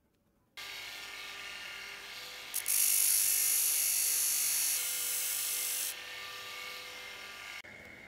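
Electric motor driving an abrasive grinding disc, running with a steady whine. From about two and a half seconds in to about six seconds, the steel tips of a pair of pliers are pressed against the disc, adding a loud, high grinding hiss, before the disc runs on alone and the sound cuts off near the end.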